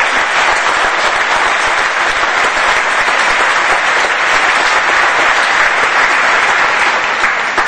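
A large audience applauding, dense steady clapping that fills the hall.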